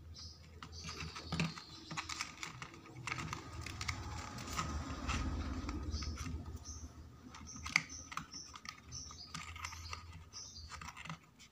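Thin printed card being folded and worked by hand: irregular paper crinkles, rustles and small clicks, with a sharper click near eight seconds in and a low rumble in the middle.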